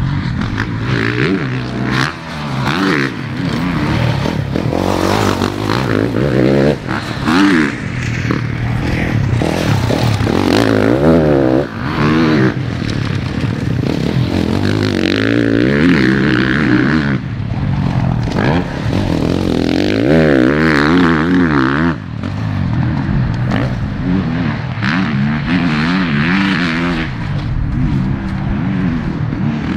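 Motocross bike engine revving hard, its pitch climbing and falling again and again with throttle and gear changes, with a few brief drops when the throttle is shut.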